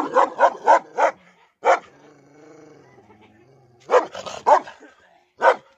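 Large chained dog barking aggressively: a quick run of about five barks, a single bark, a low growl lasting a couple of seconds, then another cluster of barks and one last bark near the end.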